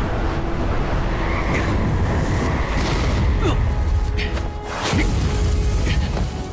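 Battle sound effects from a CG-animated fight: a constant deep rumble with sharp whooshes and impacts of magic blasts, over dramatic background music. The din falls away near the end.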